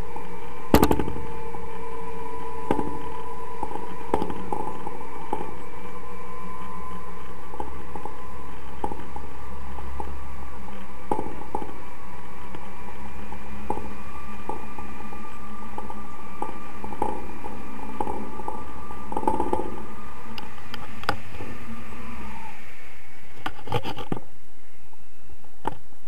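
Wind noise on a camera microphone in flight: a steady rush with a constant hum and scattered knocks and clicks, the sharpest about a second in. It cuts off abruptly near the end.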